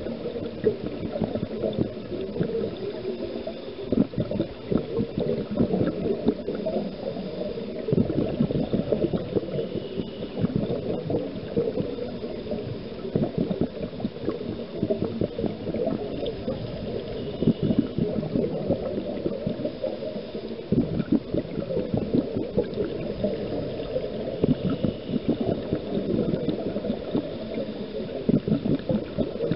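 Scuba diver's exhaled bubbles gurgling underwater, rising in surges roughly every four seconds with each breath.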